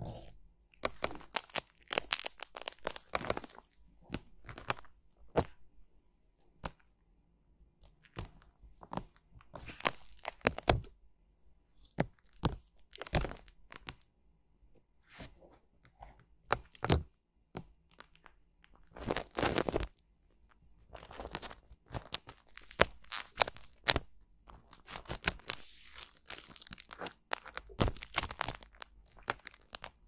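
A clear dried film being peeled and pulled off a rubber ear model with a metal pick: irregular bouts of crackling and tearing with short pauses between them.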